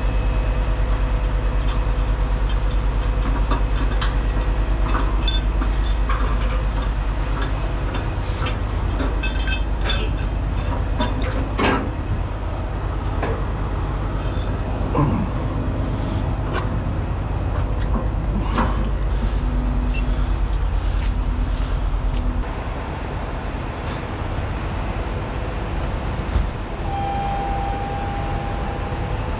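Heavy diesel truck engine running steadily, with scattered metal clanks, knocks and short squeals. The engine drops to a lower, quieter note about three-quarters of the way through.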